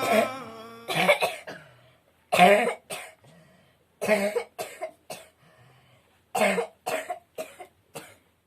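A person coughing in fits: a single cough about a second in, then groups of two, three and four short hacking coughs with pauses between, the cough of someone with a cold.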